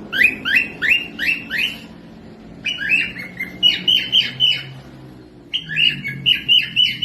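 Small pet parrot calls: three quick runs of short, rising chirps, about five or six to a run, with brief pauses between the runs.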